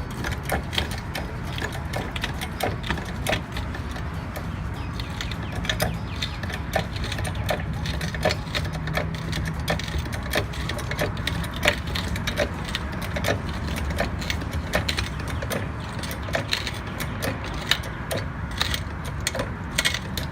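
Car jack being worked to lift a car at its jacking point, a ratcheting mechanism clicking about once a second with each stroke.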